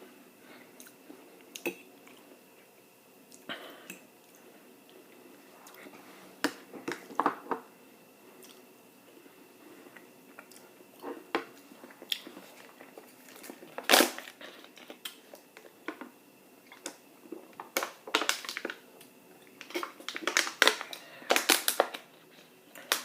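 Close-miked eating sounds: chewing with wet mouth smacks and scattered sharp clicks, coming more often and louder in the second half.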